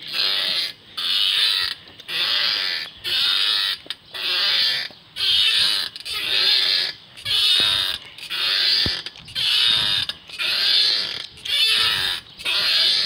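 Metal swing-set chains squeaking at their top hangers on each pass of the swing, a rhythmic squeal about once a second.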